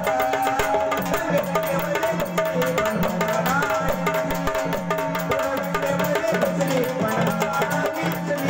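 Marathi gondhal folk music: quick, steady hand percussion over a held drone note and a repeating low melodic pattern.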